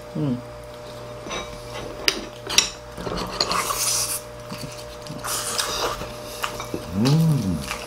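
Mukbang eating sounds: chopsticks clicking against plates a few times and noisy mouth sounds of pork back ribs being eaten off the bone, with a short appreciative hum near the end.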